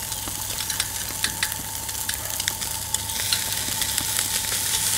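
Fish sizzling on a steel grill grate over charcoal, a steady hiss with many small crackles and pops, growing a little louder about three seconds in.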